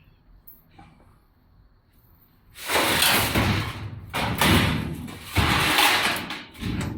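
Loud clattering handling noise on the opened smoke purifier's housing, starting about two and a half seconds in and lasting about four seconds, with two brief dips.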